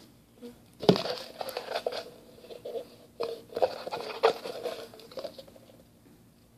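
Paper rustling and crinkling in irregular bursts, with a few sharp clicks, the loudest about a second in: a folded slip of paper being handled and unfolded.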